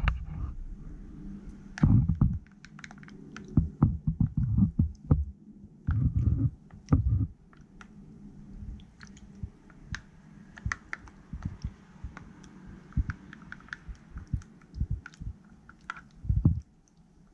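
Chopsticks stirring raw mullet pieces in a soy-sauce marinade inside a plastic container: light clicks of the chopsticks against the container and wet squishing. Dull knocks and bumps come in the first several seconds.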